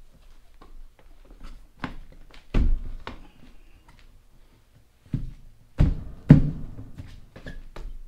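Motorcycle rear tire and alloy wheel being worked by hand and by standing on the sidewall to walk the tire off its bead: a run of dull thuds and knocks, the loudest about two and a half seconds in and just past six seconds in, with lighter taps between.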